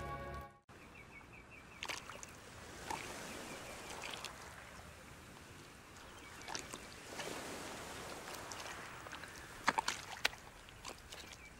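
Closing notes of background music fade out, then quiet tidal-mudflat ambience: a faint hiss with scattered small wet clicks and pops from the mud, and a short run of high chirps just after the music ends. About ten seconds in there is a brief cluster of sharper clicks and splashes as a mudskipper moves through the wet mud.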